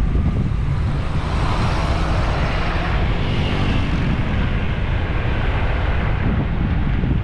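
Wind buffeting the microphone with a low rumble, while a vehicle passes by: its noise swells and fades over a few seconds in the middle.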